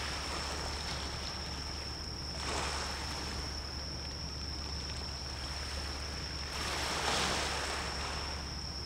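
Sea waves washing, swelling twice, over a steady low rumble and a constant high-pitched whine.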